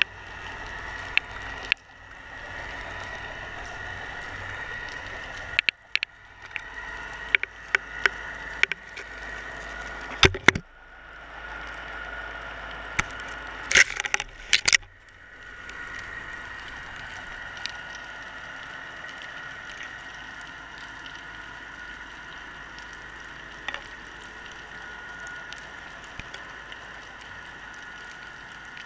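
Underwater sound picked up by a GoPro in its waterproof housing as it hangs on a fishing line: a steady muffled hiss and a high hum, with sharp clicks and knocks scattered through the first half and bunched together about 14 seconds in.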